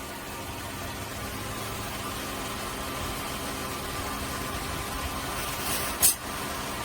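Steady machine hum with faint steady tones, broken by one sharp click about six seconds in.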